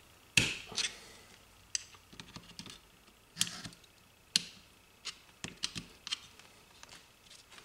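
Light, irregular clicks and taps of small metal parts: the brush springs in a Mitsuba starter motor's brush holder being pushed down with a small screwdriver until they bottom out, seating the brushes against the armature.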